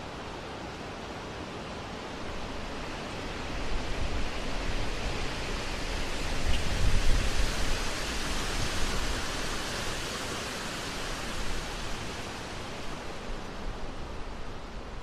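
Steady rushing noise with no distinct events, swelling to its loudest about halfway through with a deep low rumble, then easing off toward the end.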